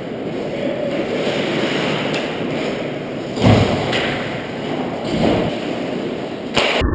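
Ice hockey skates carving and scraping on rink ice, with a sudden thump about halfway through and a few shorter scrapes after it.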